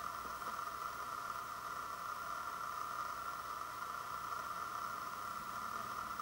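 Steady, unchanging hiss with no distinct events.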